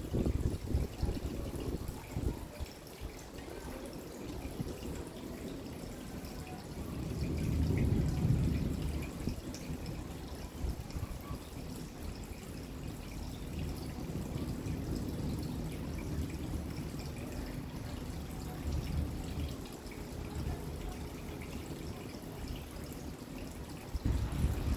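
Rain falling and dripping steadily, with a low rumble of distant thunder swelling around eight seconds in and fading.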